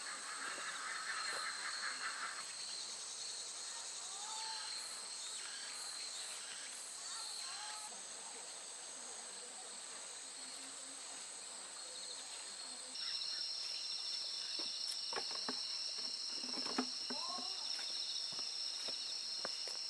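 Crickets and other insects chirping in a steady, high-pitched chorus. About 13 seconds in, the chorus gets louder as another insect at a different pitch joins in. A few faint clicks are heard near the end.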